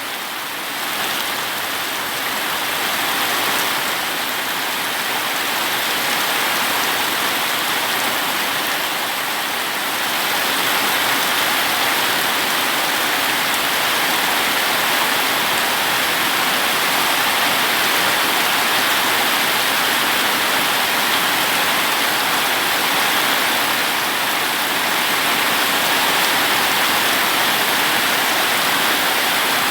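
Rain pouring down steadily, a dense even hiss that grows a little louder after about ten seconds.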